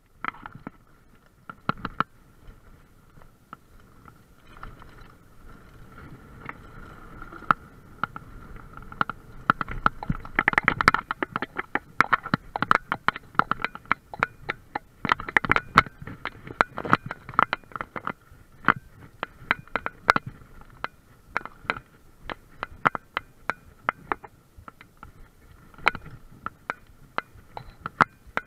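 Cannondale mountain bike ridden over a rough woodland trail: the frame and drivetrain rattle and clatter with frequent sharp knocks as the tyres hit roots and bumps, over a low rolling rumble. The knocking is densest and loudest about a third of the way in, easing off later.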